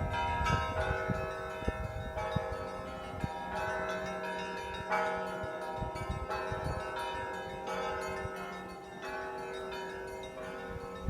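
Church bells of a cathedral ringing in full peal: several bells of different pitch struck in quick succession, their tones overlapping and ringing on, with fresh strikes about every second. Low thuds sound in the first couple of seconds.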